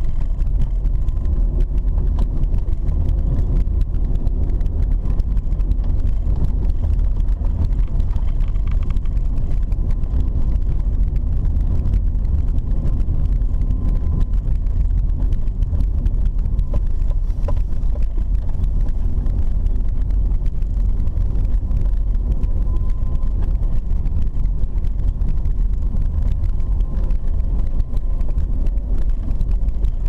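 Steady low rumble of a car driving on an unpaved dirt road, heard from inside the cabin: engine and tyre noise on the gravel surface, unchanging throughout.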